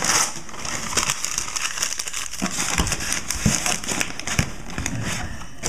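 Newspaper crumpling and crackling as wads of it are pushed and packed into the gaps of a shipping box, in an irregular run of crackles.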